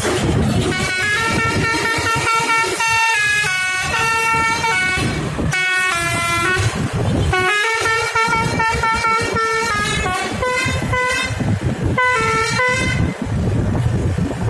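Bus 'telolet' horn, a Basuri multi-tone air horn with roof-mounted trumpets, playing a quick tune of stepping notes in two long runs with a short break about five and a half seconds in, over low engine and road noise.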